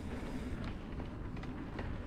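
Mountain bike riding down a dirt trail: a steady low rumble from the tyres on the ground, with a few sharp clicks and rattles from the bike.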